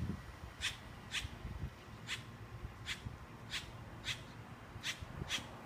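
A bird giving short, sharp, high chirps over and over, about one every half second to second, over a faint low background noise.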